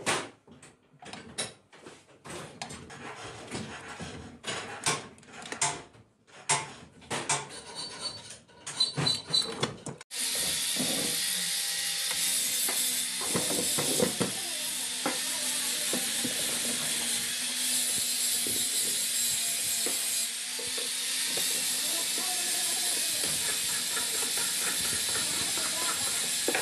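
Hand tools clicking and knocking against the metal parts of a sewing machine head being assembled, in irregular sharp taps. About ten seconds in, the sound cuts abruptly to a steady hiss with faint clicks and scrapes beneath it.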